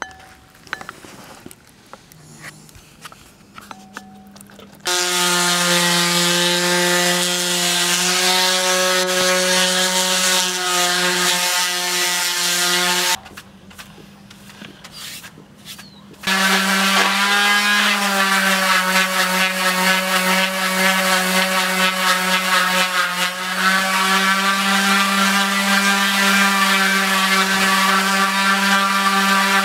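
Handheld electric power tool running steady and whining while it works a curved wooden canoe part. It starts about five seconds in, stops for about three seconds near the middle, then runs again to the end, dipping slightly in pitch under load about a second after it restarts.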